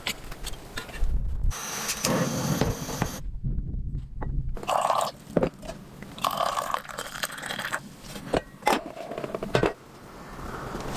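Scraping and knocking sounds in short, uneven bursts, broken by about a second of dead silence a little over three seconds in.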